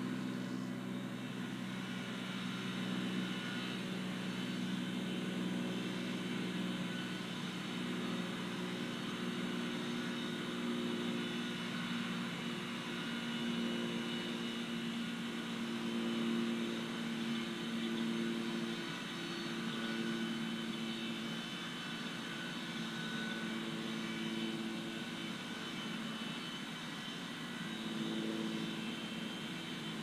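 Low engine drone of several pitches that waver slowly, with fainter steady high tones above it.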